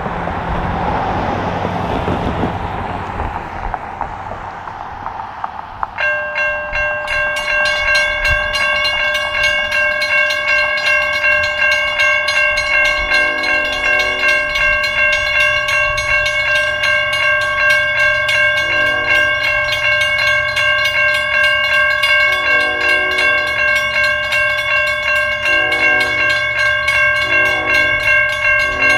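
Grade-crossing warning bell starts sharply about six seconds in and rings steadily from then on as a train approaches, over a low rumble.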